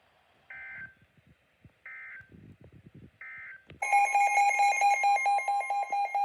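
Three short bursts of Emergency Alert System digital data tones, the end-of-message code, each under half a second and about 1.3 s apart. About 3.8 s in, a loud, rapid electronic beeping alert tone starts, around eight beeps a second.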